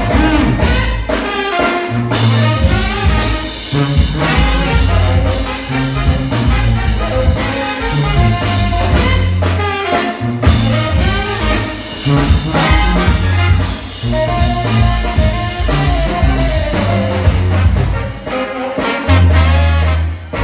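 New Orleans brass band playing live: two trumpets, trombone and saxophone over sousaphone bass notes and a drum kit.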